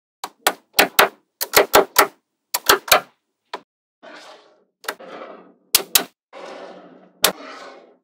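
Small magnetic balls clicking sharply as they snap onto each other, in quick pairs and clusters through the first three seconds. Later come softer rattling scrapes of balls sliding against one another, with a few single clicks among them.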